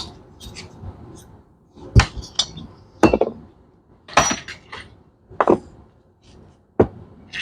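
Metal parts and tools clinking and knocking on a workbench: about five sharp metallic strikes, roughly a second apart, some ringing briefly.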